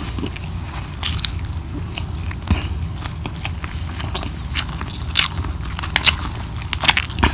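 Close-miked eating of chicken curry by hand: chewing with scattered wet clicks and smacks as a chicken piece is pulled apart with the fingers.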